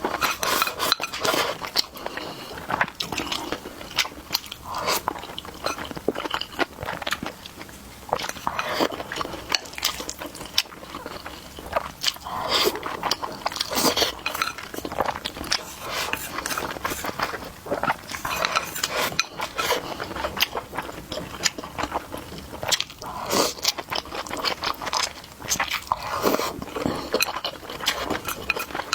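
Close-up eating sounds: chewing, biting and slurping of food, with irregular clicks and clinks of utensils against dishes.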